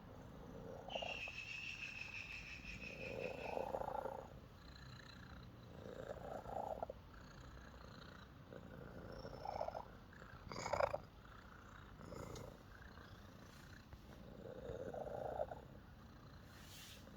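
Domestic ginger cat purring, the purr swelling every few seconds with its breathing, with one sharper, louder swell about eleven seconds in.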